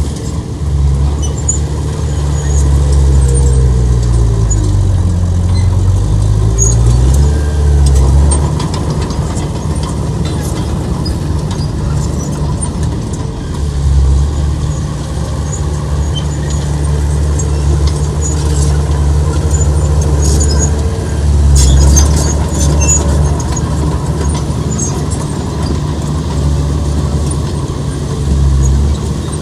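Heavy diesel engine of earthmoving machinery running hard. About three seconds in, the engine note sags and then climbs back over several seconds, and high clicks and squeaks come and go over it.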